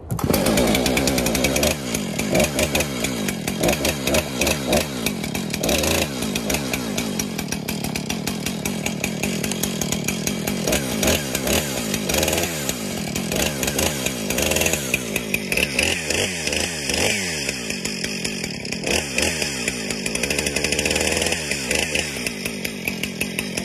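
Husqvarna 455 Rancher two-stroke chainsaw catching on a warm restart with the choke pushed back in, then running with its engine speed rising and falling unevenly.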